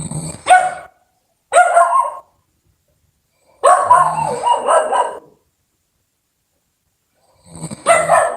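Loud snoring in four separate bursts with silence between them; the third burst is the longest.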